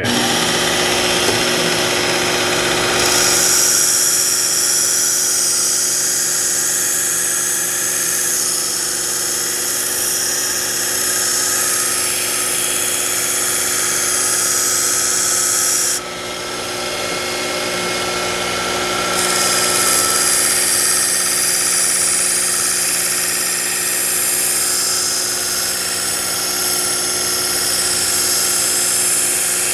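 Work Sharp electric belt knife sharpener running with a 120-grit belt while a kitchen knife's edge is ground on it: a steady motor whine with a high hissing grind while the blade is on the belt. The grind breaks off for a few seconds around the middle, then resumes.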